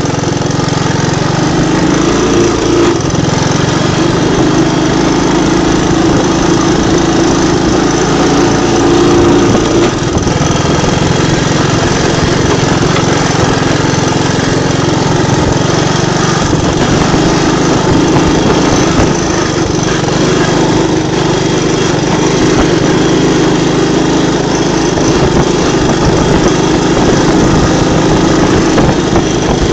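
Three-wheeler ATV's engine running steadily while being ridden, its pitch rising and easing a little a few times with the throttle.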